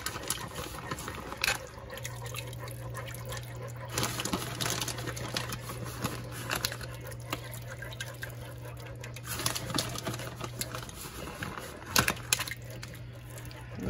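Whisk stirring a milk and shredded-cheese sauce in a saucepan: wet sloshing with irregular ticks of the whisk against the pan, a sharper knock about twelve seconds in. A steady low hum sits underneath for most of it.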